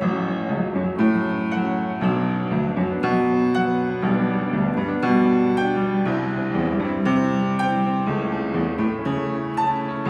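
Piano music, a continuous stream of notes and chords.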